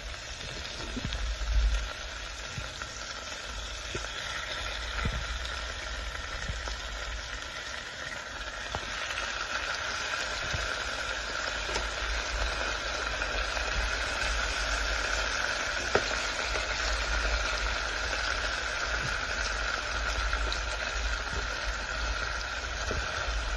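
Diced onion and raw rabbit pieces sizzling in oil in a frying pan, the sizzle growing louder and steadier after the first few seconds. A few light knocks break through it, the sharpest about two-thirds of the way in.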